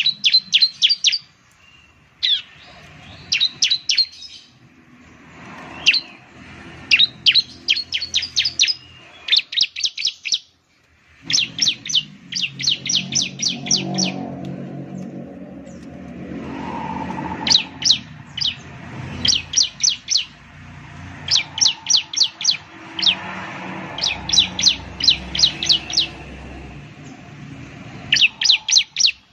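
Bar-winged prinia (ciblek) singing: bursts of about four to eight sharp, quickly repeated high notes, each sliding downward, with short pauses between bursts. A low steady hum runs underneath in the second half.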